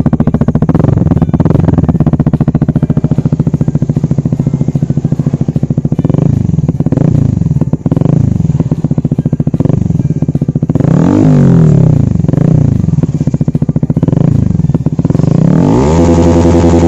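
Honda CBR150R's single-cylinder engine running through a DBS aftermarket exhaust, idling with a steady pulse and blipped up and down in several quick revs; near the end it holds at higher revs. The exhaust note is bassy and very mellow.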